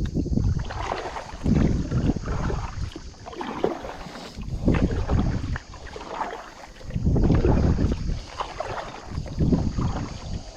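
Gusts of wind buffeting the microphone, swelling and easing every couple of seconds, over the wash of water around a small boat.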